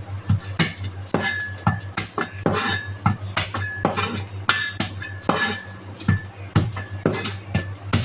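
A knife clicking and scraping against a dish as garlic cloves are peeled: irregular sharp clicks, about three or four a second, some with a brief metallic ring.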